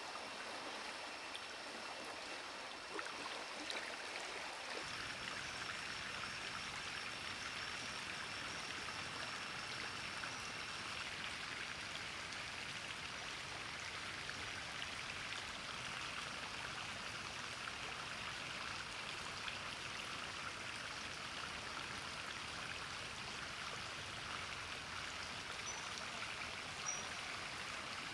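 Shallow forest stream running steadily over its bed, a continuous rush of water that grows fuller about five seconds in.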